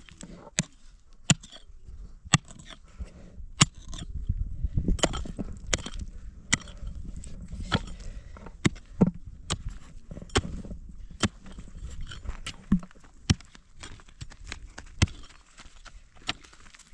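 A series of sharp cracks and knocks, irregular at roughly one or two a second, over a low rumble that swells a few seconds in.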